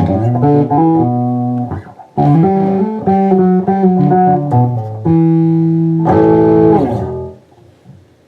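Custom-built Westrose electric bass played through an amp on its neck pickup with the tone control turned all the way up: a run of plucked notes with a short break about two seconds in, ending on held notes that die away about seven seconds in.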